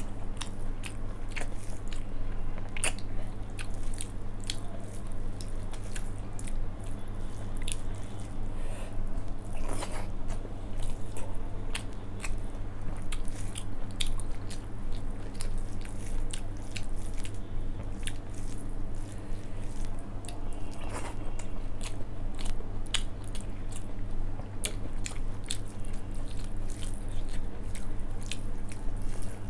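Close-miked eating by hand: chewing and wet mouth sounds, with fingers squishing and mixing rice in soya chunk curry and dal, as many small irregular clicks. A steady low hum runs underneath.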